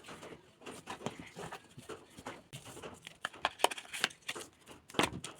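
Packaging being handled and opened: crinkling and tearing with scattered clicks and knocks, the loudest knock about five seconds in.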